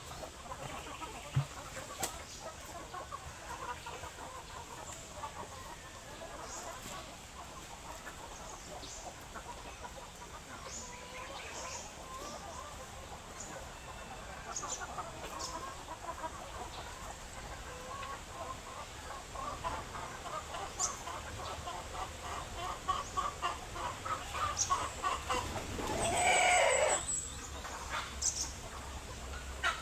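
Chickens clucking steadily, with scattered short clicks; the clucking grows busier in the second half, and a louder outburst lasting about a second comes near the end.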